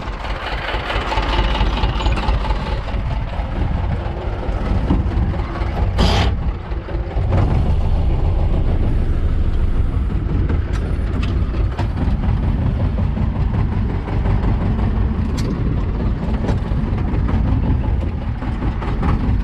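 Farm tractor's diesel engine running steadily as the tractor drives and turns with a potato ridger hitched on. A brief sharp noise cuts in about six seconds in.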